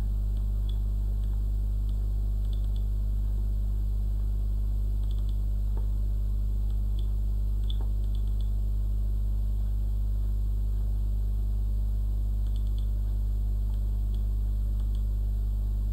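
Steady low electrical mains hum from the recording setup, with a few faint, scattered mouse clicks.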